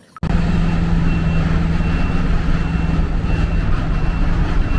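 Steady heavy-vehicle engine hum with a repeating high reversing beep over it, starting abruptly and cutting off just as abruptly.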